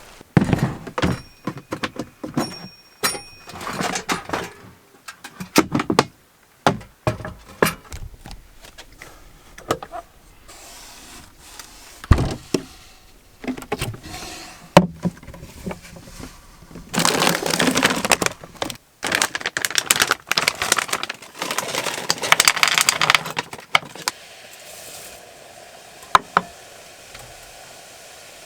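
Objects being handled: a string of irregular knocks, clicks and rattles, with two longer stretches of rustling, hissing noise about two-thirds of the way through.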